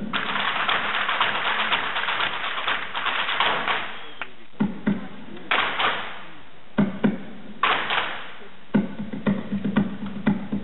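Hard-shoe taps of Irish step dancing on a wooden stage, struck in quick, uneven clicks, under a spell of audience applause for the first four seconds and two shorter rushes of applause later.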